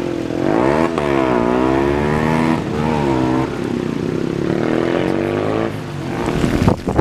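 An engine running, its pitch dipping and rising twice, then fading out near the end.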